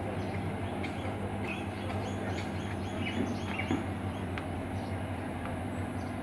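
Steady low mechanical hum, with a run of short high chirps through the middle.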